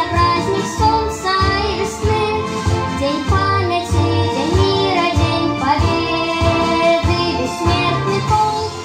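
A boy singing into a microphone over an instrumental accompaniment with a steady bass beat.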